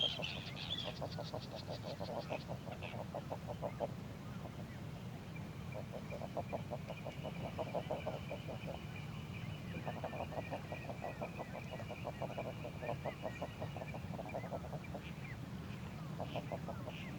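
Waterfowl calling in repeated rapid rattling, chattering bouts a few seconds long, with a few higher squeaky calls, over a steady low rush.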